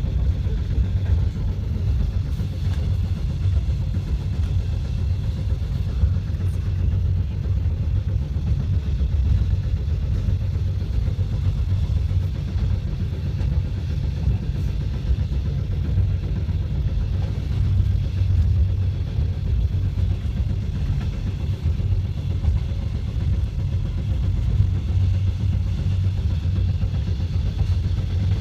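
Passenger train running at steady speed: a continuous low rumble.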